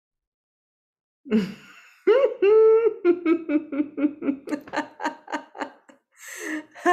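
A woman laughing: after about a second of silence comes a breathy start, then a long held "haaa", then rhythmic "ha-ha" pulses about four a second that gradually weaken. A sharp noisy breath comes near the end.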